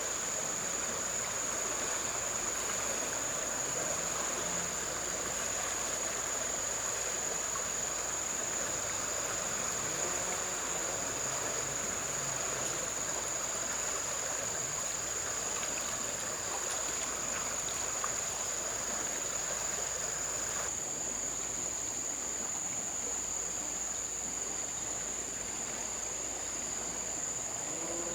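Outdoor riverside ambience: a steady high-pitched insect drone over running water. The water noise thins abruptly about two-thirds of the way through.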